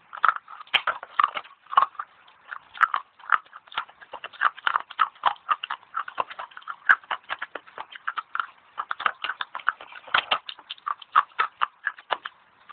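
Fast crunching of dry clay sticks being bitten and chewed close to the microphone: a dense, continuous run of short, sharp crunches.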